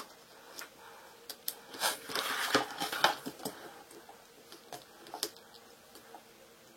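Vinyl wrap film being handled and trimmed: scattered light clicks and ticks, with a louder crinkling rustle about two seconds in that lasts about a second.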